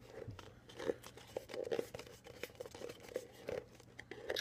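Rim of a paper coffee cup being rolled up with the thumbs, the paperboard crinkling and tearing in a run of small irregular crackles.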